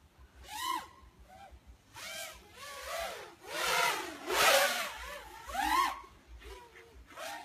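FPV racing quadcopter's brushless motors (Emax RS2205) and propellers revving up and down in repeated swells, each a rising then falling whine, about seven in all. The loudest burst, near the middle, carries a broad rush of propeller noise.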